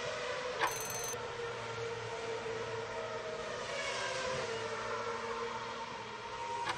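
Steady looped background drone with a constant hum, under quiz-timer sound effects: a sharp tick about half a second in, then a sweeping whoosh around four seconds in as the answer is revealed.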